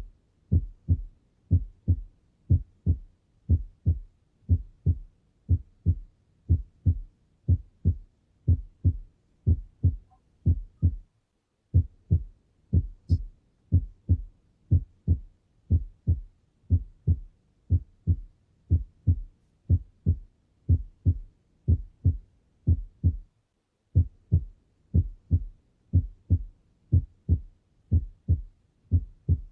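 Normal heart sounds heard through a stethoscope: a steady, regular lub-dub of low thumps, the first and second heart sounds. It breaks off briefly twice.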